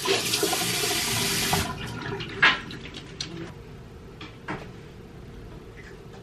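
Water running from a tap, shut off abruptly a couple of seconds in, followed by a few short knocks and clicks.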